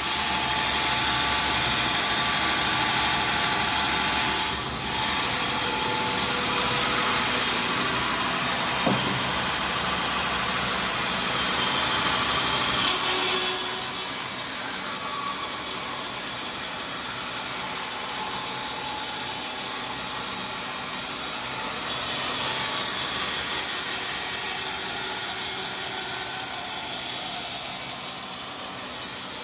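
Griggio BS-740 band resaw running and resawing a wooden board fed through its roller power feeder. About halfway through the level drops and the saw runs on more quietly and steadily.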